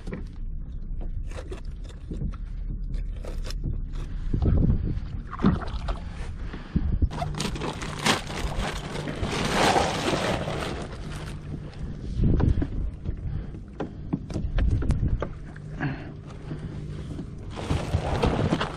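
Handling noise on a plastic fishing kayak: irregular knocks, scrapes and rustling as an insulated fish bag packed with bagged ice is opened and a freshly caught skipjack tuna is handled over it.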